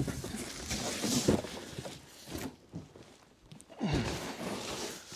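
A large cardboard box being pulled off a pallet and handled: cardboard scraping and rustling with a few knocks, then a short grunt about four seconds in as it is lifted onto a table.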